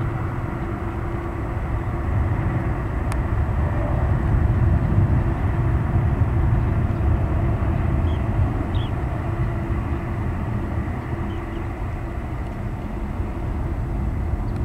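Twin-engine jet airliner's engines at takeoff thrust: a steady low rumble as the jet climbs away, swelling slightly a few seconds in and easing later.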